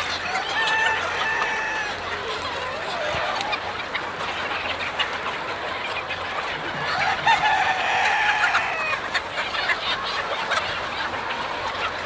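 A large flock of chickens clucking continuously, many birds at once. A rooster crows loudly about seven seconds in, with another long call near the start.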